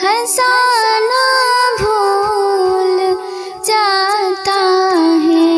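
A woman's voice singing a ghazal melody in long, gliding, ornamented notes.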